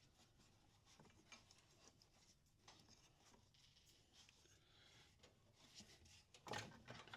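Near silence with faint scattered ticks of handling. A couple of brief, louder handling noises come near the end.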